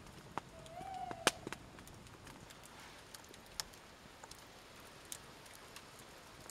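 Campfire crackling faintly in the quiet woods, with sparse, irregular snaps. A short wavering tone sounds about a second in.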